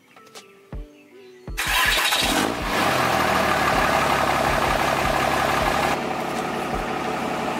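Diesel pickup engine cranking and firing about a second and a half in, then settling into a steady idle. This is the first start-up to check fuel pressure and leaks after a new fuel-tank sump install. Near the end it is heard from inside the cab, a little quieter.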